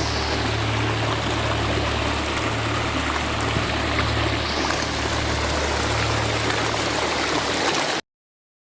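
Forest river water flowing steadily, with a low hum beneath, cutting off suddenly near the end.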